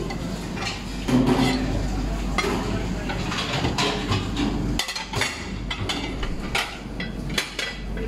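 Porcelain dinner plates clinking and knocking against each other and against the plastic dish rack as they are lifted out by hand, many sharp clacks in quick succession over a steady low hum.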